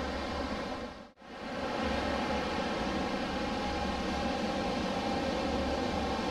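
Steady wash of sea surf, with some low wind rumble on the microphone; the sound dips out briefly about a second in and then resumes.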